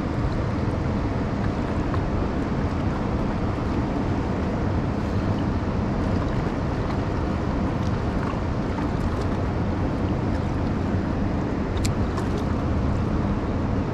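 Steady rush of water pouring over a dam spillway and running past the rocks, with wind buffeting the microphone.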